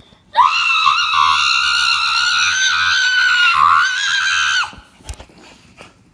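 A person's long, loud, high-pitched scream, held for about four seconds with a wavering pitch, then cut off sharply.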